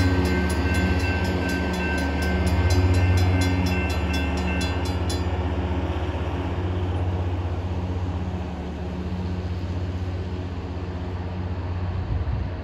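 Railroad crossing bell ringing about three strokes a second, stopping about five seconds in, over the steady low drone of approaching Norfolk Southern diesel locomotives.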